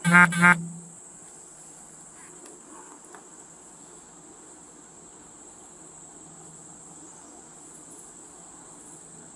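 Steady high-pitched drone of insects in summer vegetation. Two short, loud tonal beeps come right at the start.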